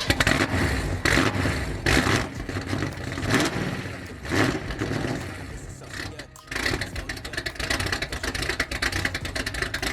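Pontiac Firebird SD 455's 455 cubic-inch V8 being revved in a string of surges, then, after a brief dip about six seconds in, running on with a steady rapid pulsing.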